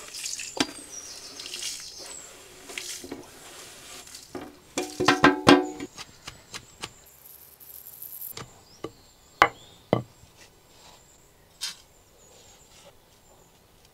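Roasted whole spices dropped into a stone mortar and pounded with a heavy pestle: scattered knocks, the sharpest about five seconds and nearly ten seconds in.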